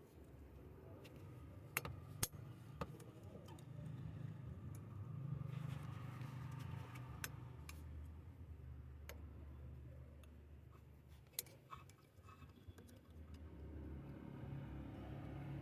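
Faint scattered metallic clicks and ticks of circlip pliers working at the snap ring that holds an AC compressor pulley, over a low hum that rises and falls.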